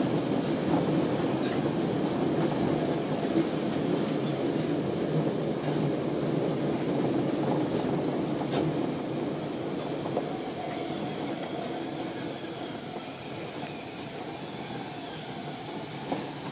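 Osaka Municipal Subway 10 series train heard from inside the passenger car while running: a steady rumble of wheels and running gear that grows somewhat quieter about ten seconds in.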